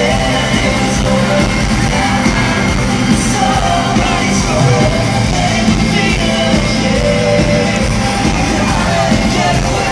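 Live pop-rock band playing in a large arena, with guitars, drums and a lead singer through the PA and the crowd yelling along.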